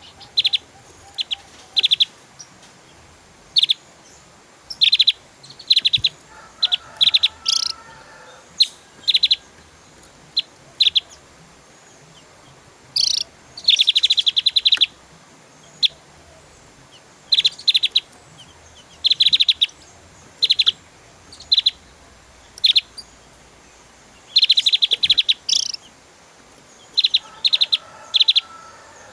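Javan grey-throated white-eye (opior Jawa) singing in short, sharp, high chirps at irregular intervals. Twice, midway and near the end, the chirps run together into a rapid trilled burst, the fast 'tembakan' phrasing.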